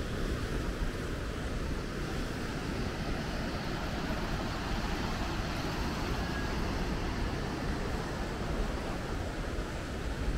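Steady outdoor city street ambience: an even, low rumble of traffic with wind on the microphone, and no distinct events.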